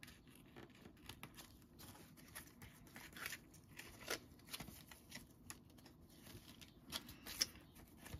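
Faint rustling of paper and string being handled, with scattered small clicks and a few sharper ticks.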